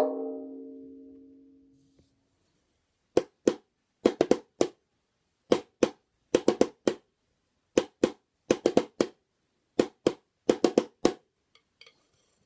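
Wooden drumsticks tapping a homemade drum made of two crisp tubes bound with tape, playing sharp dry hits in a repeating pattern of two beats followed by four quicker ones. Before the tapping begins, a single ringing note fades away over about two seconds.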